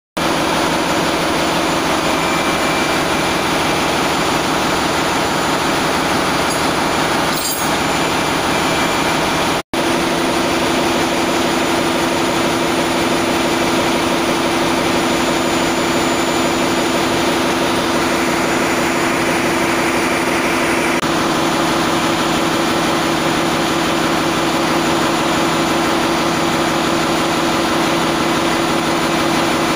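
Steady, loud machinery din of a ship's engine room: running engines or generators with a constant low hum and mechanical noise. The sound drops out for an instant about ten seconds in.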